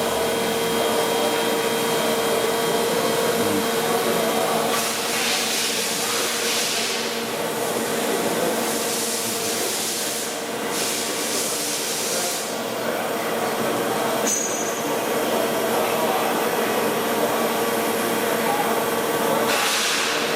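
Steady machinery noise with a constant hum, broken by hissing bursts about five seconds in, twice around ten to twelve seconds, and again near the end.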